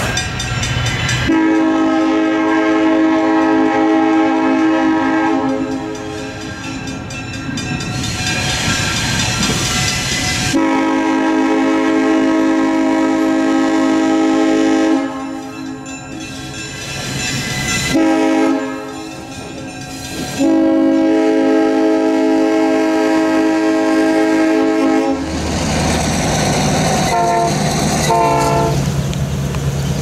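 Diesel switcher locomotive's air horn sounding the grade-crossing signal: two long blasts, a short one, then a long one, each a steady chord. A different sound takes over about five seconds before the end.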